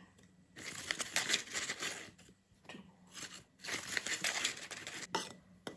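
Plastic flour bag crinkling and rustling as spoonfuls of flour are scooped out and tipped into a bowl, in three spells, followed by a couple of light taps near the end.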